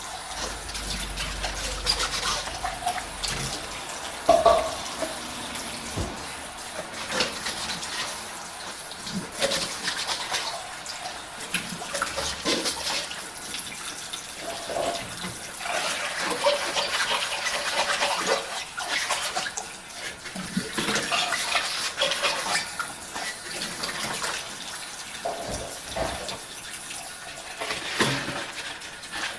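Dishes being washed at a sink: running tap water splashing, with frequent clinks and knocks of dishes and utensils against each other and the sink, and now and then a short ringing clink.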